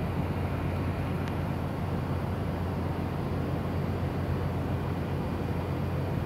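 Steady low hum and rumble inside a New York City subway car on the 3 train, with a faint click about a second in.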